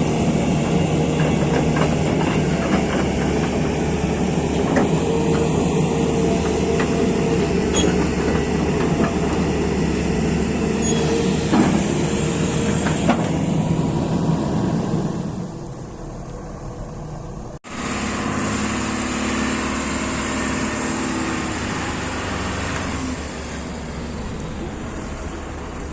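Heavy diesel machinery running steadily, excavator or dump-truck engine, with a few scattered knocks. The engine sound drops in level about fifteen seconds in, cuts out for an instant, then carries on quieter.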